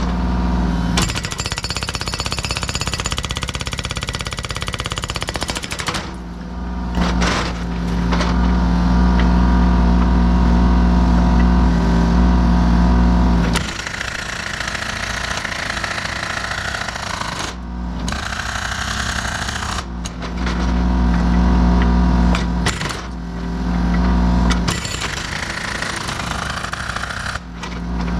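Mini excavator's hydraulic breaker hammer pounding rock in rapid repeated blows, in several spells, with the machine's engine running loud and steady underneath and between the spells.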